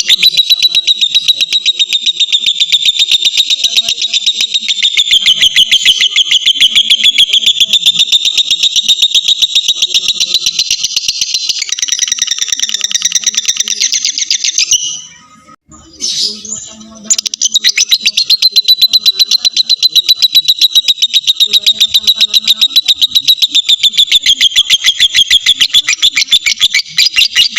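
Lovebird singing its long 'ngekek' chatter: a fast, unbroken run of high, shrill notes. It breaks off for a second or so around the middle, then starts up again.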